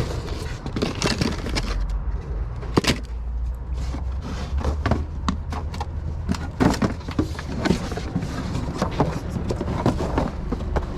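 Knocks and clatter of plastic storage containers and other items being handled and moved, many short strikes at irregular intervals over a steady low rumble.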